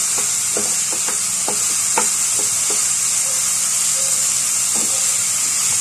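Diced vegetables, carrots among them, sizzling steadily in a nonstick frying pan as a wooden spatula stirs them. The spatula strikes and scrapes the pan in irregular taps, most often in the first few seconds.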